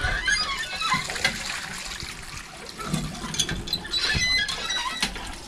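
Water splashing and gushing in a children's duck-race water game, with many short, high-pitched squeals over it.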